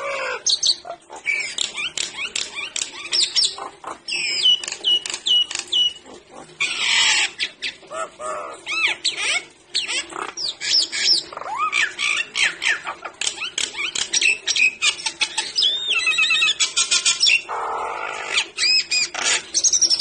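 Nias hill myna calling nonstop: a rapid run of loud whistles that slide up and down, sharp clicks and harsh squawks, with a fast warbling trill a little past the middle.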